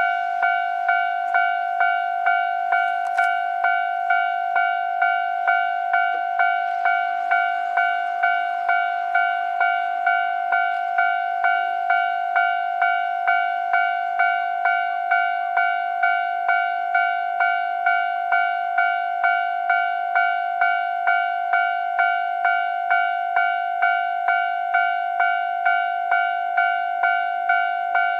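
Japanese railway level crossing warning bell ringing at an even rhythm, a little under two strikes a second, signalling that a train is approaching.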